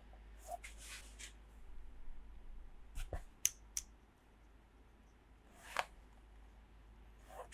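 Small plastic toy playset pieces being handled and set down: light rustling, then a quick cluster of sharp clicks about three seconds in, and single taps near six seconds and at the end.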